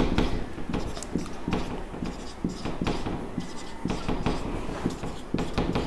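Marker pen writing on a whiteboard: a run of short, irregular scratching strokes.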